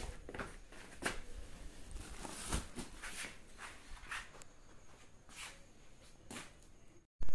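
Faint scattered rustles and light knocks, about one a second, from straw-filled polythene oyster mushroom spawn bags being handled and moved. A faint high steady whine comes in about halfway.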